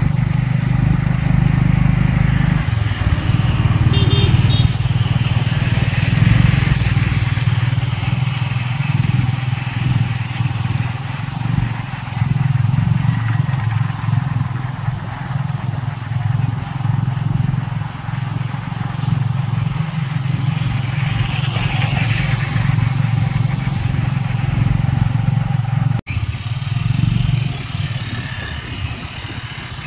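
Motorcycle engine of a Cambodian tuk-tuk (a motorbike pulling a passenger carriage) running steadily on the move, with road and traffic noise around it. A passing vehicle swells up about three-quarters of the way through, and the sound cuts out for an instant near the end.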